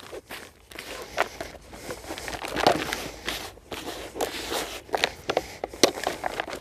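Hands kneading and squeezing heavy, wet, very sticky groundbait in a bait bowl, giving a run of irregular short scrunching sounds.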